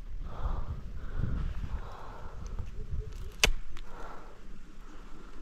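Rustling and handling noise from someone moving through brush, over an uneven low rumble, with one sharp click about three and a half seconds in.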